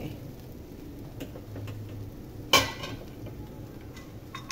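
Cooking spoon stirring thick carrot halwa in an aluminium pot, with light ticks of the spoon on the pot and one sharp metallic clink about two and a half seconds in.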